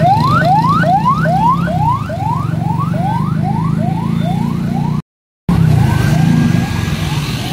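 Emergency vehicle siren yelping in rapid rising sweeps, about three a second, over the steady rumble of motorcycle and auto-rickshaw engines in traffic. The sound cuts out for about half a second around five seconds in, and the siren then comes back fainter.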